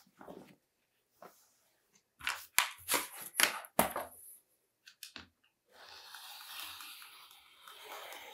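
Fabric panel and acrylic quilting ruler being handled and set down on a cutting mat, a series of sharp knocks and rustles. From about six seconds in, a rotary cutter rolls along the ruler's edge through the fabric in one long steady cut.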